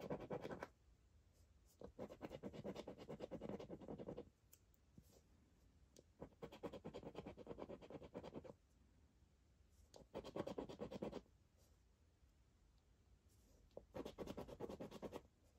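A coin scraping the latex coating off a scratchcard in five spells of quick back-and-forth strokes, with short silent pauses between them.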